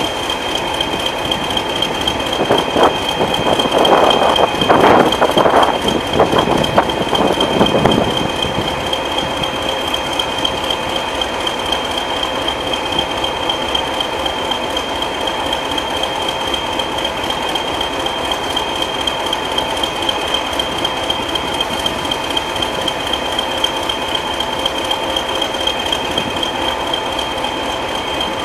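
British Rail diesel locomotive engine running steadily at idle, with a constant high-pitched whine over it. A louder, rougher stretch of noise comes about three to eight seconds in.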